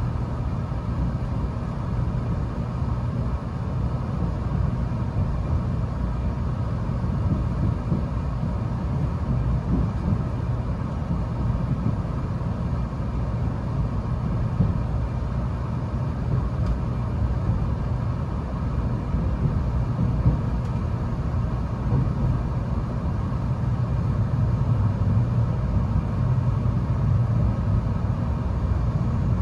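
Running noise heard inside a moving 700 series Shinkansen car: a steady low rumble of wheels and train that stays even throughout.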